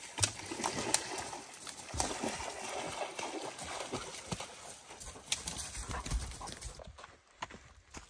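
People and dogs walking on a trail: irregular footsteps, knocks and rustling. The sound drops quieter about seven seconds in.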